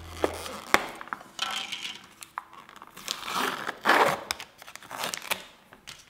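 Lid and inner seal being pulled off a plastic tub of Meiji Bulgaria yogurt: crinkling and tearing of the packaging, broken by several sharp clicks.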